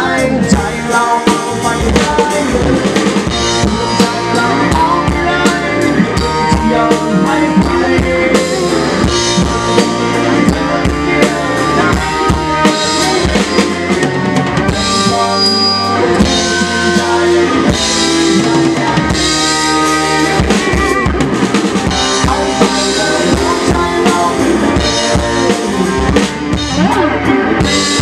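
Live rock band playing, with an acoustic drum kit driving the beat (kick, snare and cymbals) under electric guitar.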